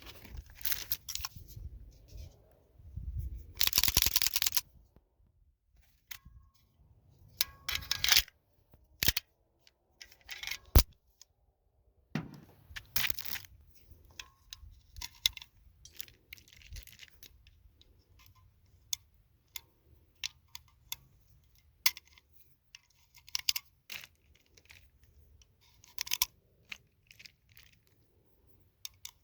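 Things being handled: scattered sharp clicks and clacks with short rustles, and a louder scraping, tearing sound about three to four and a half seconds in.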